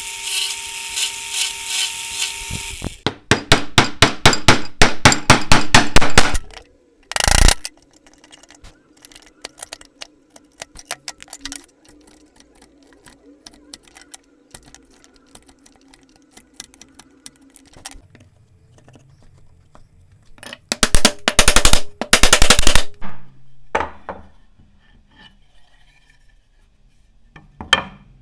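Drill press running and boring into a block of wood, stopping after about three seconds. Then comes a burst of loud, rapid knocking at several strikes a second, then quieter scattered taps and clicks, and a second burst of loud knocking later on.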